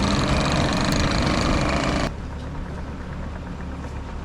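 Engine running steadily at low revs under a loud rushing noise, which cuts off abruptly about halfway through and leaves only the low engine hum.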